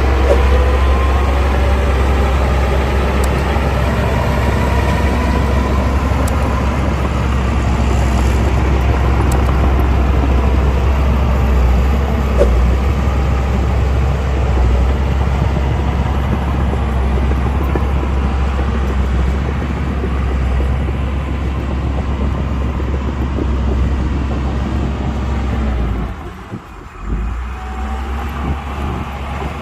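A bulldozer's diesel engine running steadily under load, with a deep rumble and some rising and falling engine pitch in the first few seconds. It drops away briefly near the end before picking up again.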